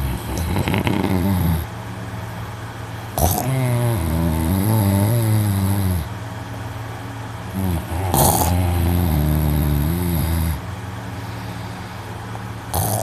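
A young man snoring loudly in deep sleep: low, buzzing snores of two to three seconds each, repeating about every five seconds, each one starting abruptly.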